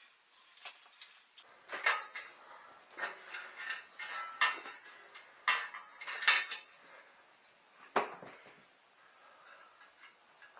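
Metal parts and hand tools clinking and clanking as they are handled during bicycle disassembly: a series of sharp knocks, the loudest about two, six and eight seconds in.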